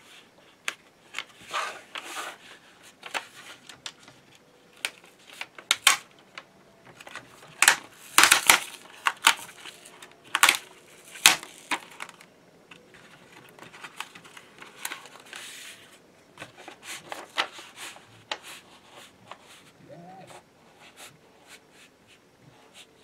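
The adhesive backing liner being peeled off a sticky-backed print-surface sheet as it is laid onto a 3D printer's heat bed: intermittent crackling and crinkling of the paper liner, with hands rubbing the sheet down. The loudest crackles come about eight seconds in and again around ten to eleven seconds.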